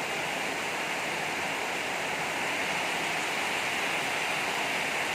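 Heavy rain pouring down, an even, steady rush of noise.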